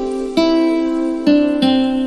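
Outro background music: a slow melody of single plucked notes, each struck sharply and left to fade, with a new note coming every half second to a second.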